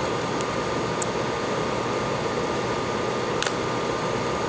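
A few small sharp clicks as a suction-cup opening tool pries at an iPhone 6S display, the clearest about three and a half seconds in, over a steady fan-like hiss with a faint steady tone.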